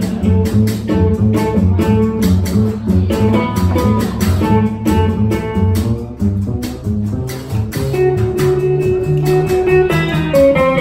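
Live instrumental music from a guitar and an upright double bass: the guitar strums chords in a steady rhythm while the bass is plucked on low notes underneath.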